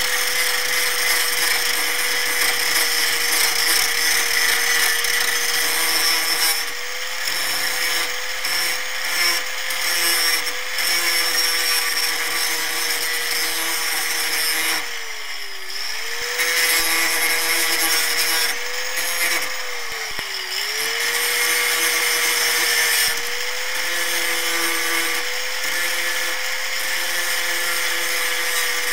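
Electric angle grinder running, its abrasive disc biting into the thin steel of an old handsaw blade with a steady, hissing grind over the motor's whine. The whine sags twice under load, about halfway and two-thirds of the way through, then picks back up.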